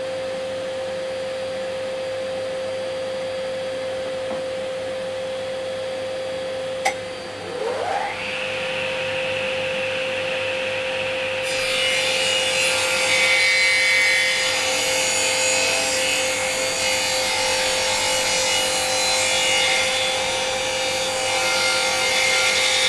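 Table saw ripping a walnut block into 20 mm square pen blanks. A steady motor hum runs first, then after a click about 7 s in a second motor winds up with a rising whine and holds. From about 12 s in the blade cuts through the walnut with a louder, noisy cutting sound until near the end.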